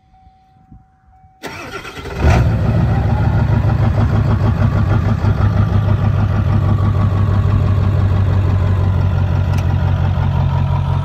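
Ford OBS truck's 7.3 Powerstroke turbodiesel V8 cranking briefly and firing about two seconds in, then settling into a steady idle with its diesel clatter.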